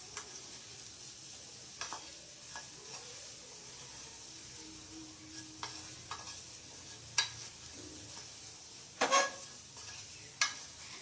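A spatula stirring chopped okra and onion in a stainless steel pan on the gas flame, with a sharp scrape or knock on the pan every second or two, the loudest a double knock about nine seconds in. A soft sizzle of the vegetables cooking dry, without oil, sits under it.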